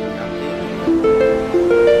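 Background music: a gentle melody of separate notes that each ring on, with several new notes in the second half.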